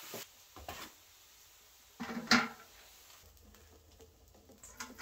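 Metal cookware being handled: a few light knocks, then one sharp metallic clank a little over two seconds in as a wire mesh strainer and a roasting pan of melted beeswax are set over a metal bucket. Right at the end the melted wax starts to pour.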